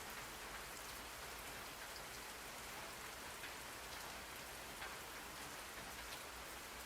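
Steady rain falling, an even hiss with faint scattered drop ticks, played as a background rain track.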